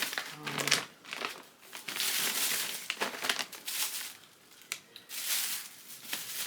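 Plastic packaging crinkling and rustling in bursts as it is handled.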